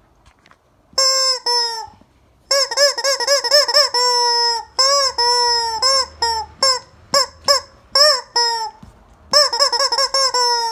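Rubber screaming-chicken toy squeezed by hand, letting out a string of loud, honking squawks: runs of quick short ones and a few drawn-out ones, each sliding up and then down a little in pitch, with a couple of brief pauses.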